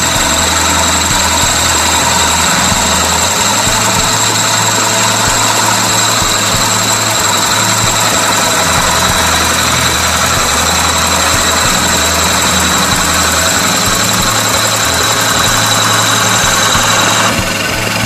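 Drill press running steadily with a high whine as its wide cutter bores a large hole through a pine board, throwing off shavings. The whine stops about a second before the end.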